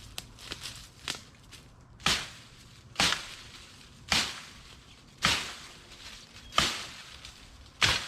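A stainless steel survival shovel being swung hard and struck repeatedly: six heavy blows, about one a second, after a few lighter knocks at first.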